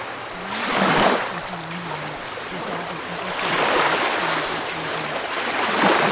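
Ocean waves washing in, the rush of water swelling three times: about a second in, in the middle, and near the end.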